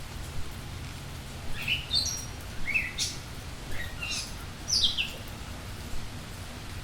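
A songbird giving a quick series of short, high chirps, several sweeping down in pitch, over a steady hiss of rain.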